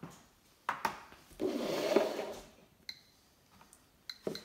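A GMC-300E Geiger counter being handled and moved along a wooden tabletop: a couple of knocks, then about a second of rubbing and scraping as it is set down. Over the last second and a half the counter gives a few short, high clicks, each one a detected count of radiation from the uranium-glazed plate.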